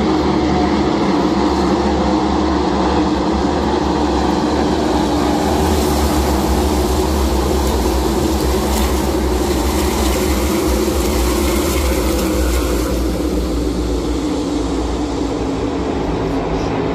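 The NASCAR Cup Series field of V8 stock cars running at racing speed, a loud, steady drone that swells for several seconds in the middle as the pack comes by.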